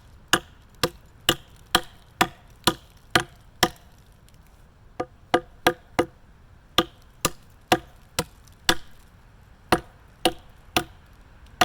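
Tomahawk chopping through wet wood: a steady run of sharp strikes about two a second, with two short pauses.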